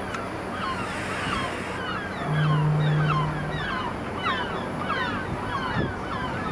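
Birds calling over and over, a steady stream of short falling chirps two or three a second. A low steady hum swells for about a second in the middle.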